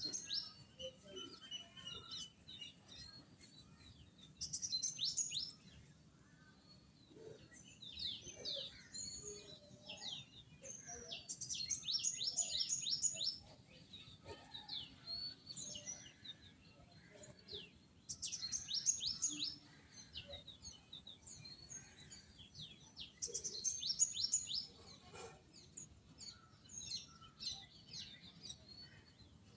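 Small songbirds chirping and singing in repeated bouts of quick, high, downward chirps, with quieter calls in between.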